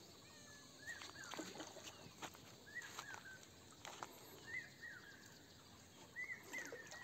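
Faint bird chirping: short arched notes coming singly or in pairs every second or so, with a few soft clicks among them.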